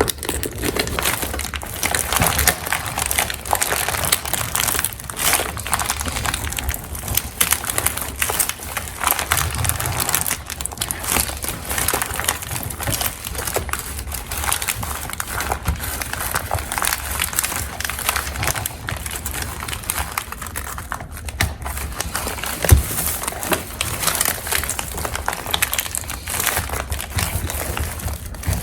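Contact paper being peeled off a resin piece and crumpled: continuous, irregular crinkling and crackling of plastic film, with one sharp click about 23 seconds in.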